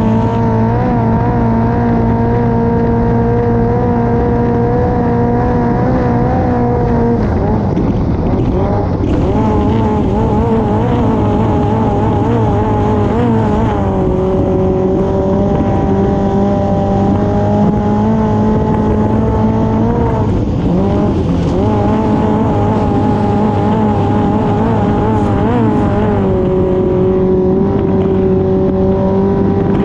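Honda F20C inline-four engine of a classic racing hydroplane running hard at high revs, heard close aboard with rushing wind and spray. The engine note wavers and drops in pitch, then climbs back, several times.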